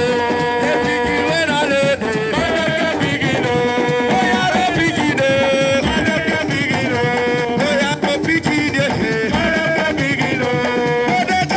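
Music: a melody line in long, wavering held notes over steady percussion.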